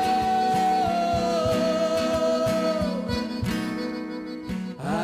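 Instrumental passage of a moda de viola: viola caipira plucking steady bass notes and chords under a long held melody note that steps down in pitch twice, with the accordion accompanying.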